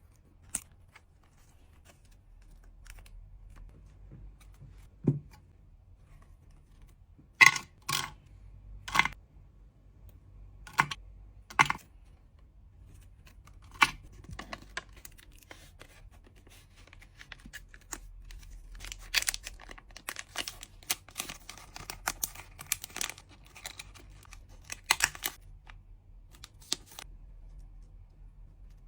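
Hands packing trading cards: a handful of sharp clicks and taps as items are handled and set down, then, from about two-thirds of the way in, a busier run of small crackling and rustling of packaging.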